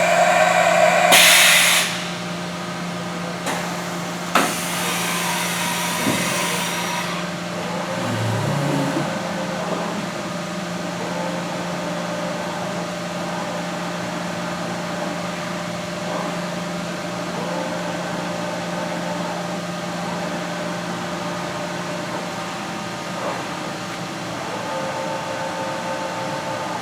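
Haas EC-1600 horizontal machining center running under power, with a steady hum. Loud hissing bursts come about a second in and again from about four to seven seconds, and a short rising whine follows a little later.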